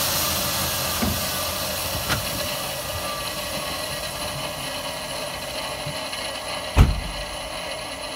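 Dual ball-bearing turbocharger on a Mitsubishi 4G63 spinning freely just after the engine is switched off: a whirring hiss with thin steady whines, fading slowly as the turbo winds down. A sharp thump about seven seconds in, with two light clicks earlier.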